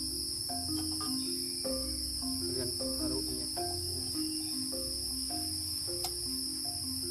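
Steady, unbroken chorus of forest insects, a continuous high shrill drone. Under it runs soft, rhythmic background music of low stepping notes with a bass pulse. A single sharp click comes about six seconds in.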